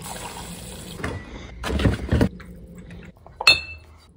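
Hot coffee poured from a glass coffee-maker carafe into a ceramic mug, a steady pour and splash of liquid, with louder handling noises about two seconds in and a short, sharp clink near the end.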